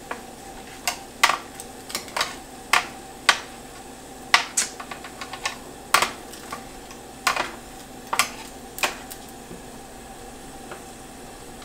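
Metal kitchen tongs clicking and tapping against a sheet pan and oven rack while chicken wings are turned over under the broiler. The clicks come irregularly and thin out near the end.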